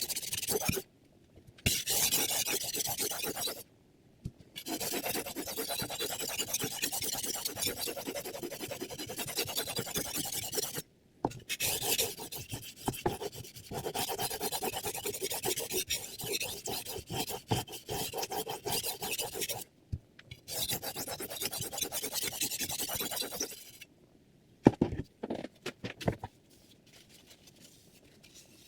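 Chef's knife edge being stroked back and forth on a diamond sharpening plate: a steady gritty rasping in long runs of strokes, broken by short pauses. The rasping stops near the end, followed by a few light clicks.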